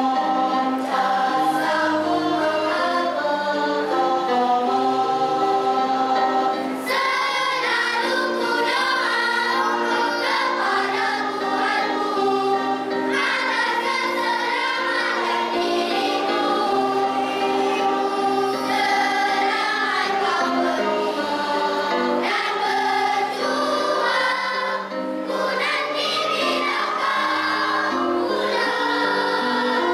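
Primary-school children's choir of boys and girls singing together, with short breaks between phrases.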